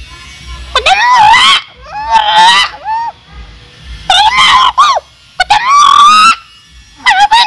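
A man's voice talking in a very high, shrill, squealing pitch, in five or six quick bursts with short gaps, the pitch swooping up and down.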